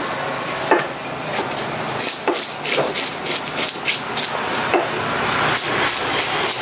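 A large knife slicing a giant trevally fillet into pieces on a wooden chopping block, each stroke ending in a short knock of the blade on the wood, irregularly about once a second, the sharpest just under a second in.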